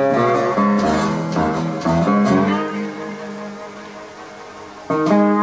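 Amistar resonator guitar: several plucked notes, some sliding in pitch, in the first couple of seconds, then left ringing and fading. A new chord is struck about five seconds in.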